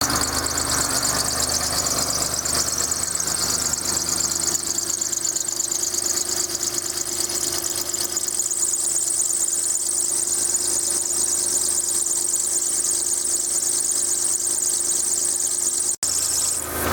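Car engine idling with a steady high-pitched drive-belt whistle over it, which the owner traces to a corroded battery terminal.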